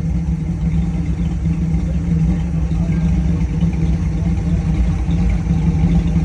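Ford 302 V8 swapped into a Geo Tracker, idling steadily with its sound mostly low-pitched.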